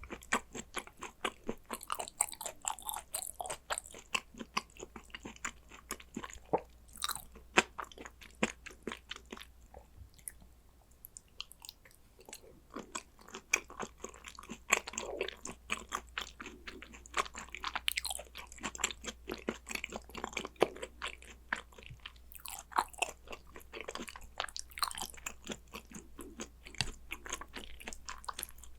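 A person chewing and biting spicy gochujang Korean raw beef tartare (yukhoe): a dense run of wet clicks and crunches, with a quieter pause about ten seconds in.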